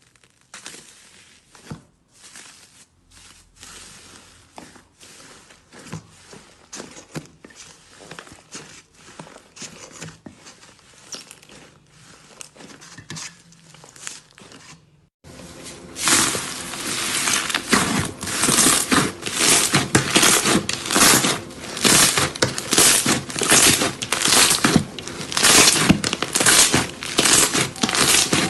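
Slime being squeezed and worked by hand, giving dense crackling, crinkling pops and clicks. About halfway through it becomes suddenly much louder and denser.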